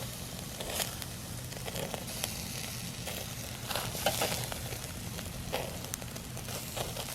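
Burgers and chicken sizzling over charcoal on a grill: a steady hiss of fat and juices, with occasional pops and crackles.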